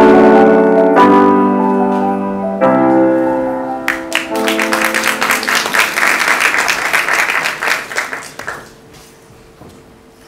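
Recorded piano music: slow held chords that change every second or so and fade out. About four seconds in, an audience breaks into applause, which dies away about four seconds later.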